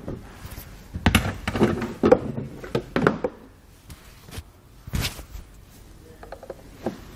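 Plastic retaining tabs of a 2019 BMW X3's rear bumper fascia clicking and knocking as the cover is pried and tugged loose with a small screwdriver, in a series of sharp knocks and clicks.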